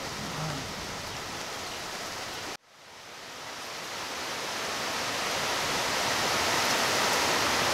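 Steady rain hiss. It cuts out abruptly about two and a half seconds in, then fades back in and slowly grows louder.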